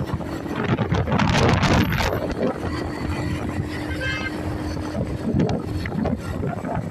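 Wind buffeting the microphone over road and traffic noise while riding a bike, in uneven gusts, with a steady hum in the middle.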